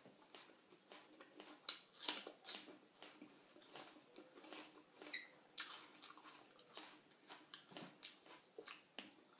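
A person chewing with the mouth open and smacking their lips while eating raw shrimp salad with sticky rice: soft, irregular wet clicks and smacks.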